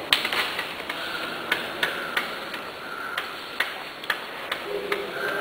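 A series of sharp clicks or taps, unevenly spaced at roughly three a second, the loudest right at the start.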